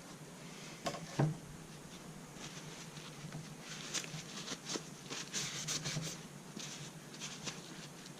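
GSG-16 rifle parts being cleaned by hand: two sharp knocks about a second in, then irregular scrubbing and rubbing, as of a brush or cloth working over the parts.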